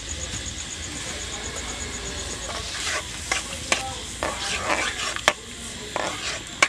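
Spatula stirring sliced arum flowers as they boil in water in a metal wok. A steady bubbling hiss comes first; from about halfway in there are scraping strokes and several sharp clinks against the pan.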